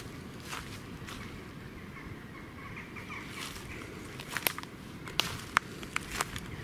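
Footsteps through muddy woodland undergrowth: soft steps at first, then a run of sharp crunches and twig snaps from about four seconds in.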